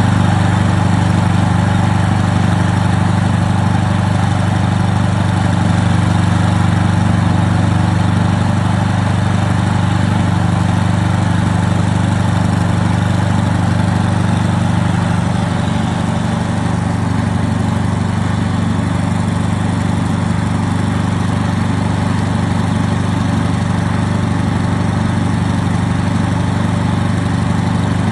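Diesel engine of a tracked spider access platform running steadily at constant speed, powering the hydraulics as the boom is raised.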